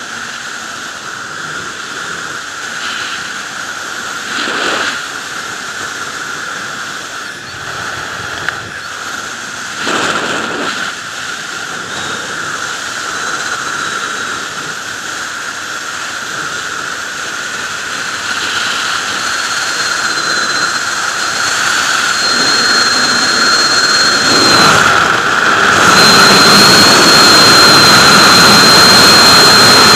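A sport motorcycle ridden at speed, with wind rushing over the microphone and engine noise underneath. The noise grows louder through the second half and jumps near the end. A thin steady whine comes in about two-thirds of the way through.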